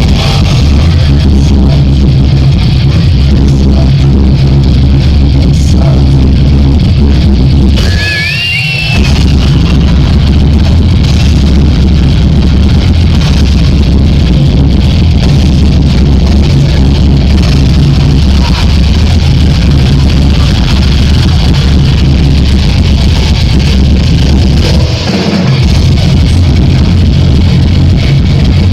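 Live heavy metal band playing loud, with the low end heavy and distorted in a poor audience recording. The music drops out briefly about eight seconds in, with a short whistle-like tone.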